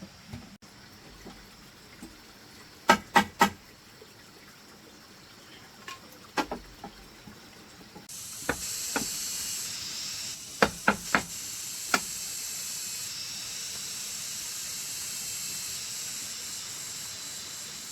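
Sharp knocks in quick groups of two or three as a knife hacks at bamboo. A steady high hiss starts about halfway through and stays to the end.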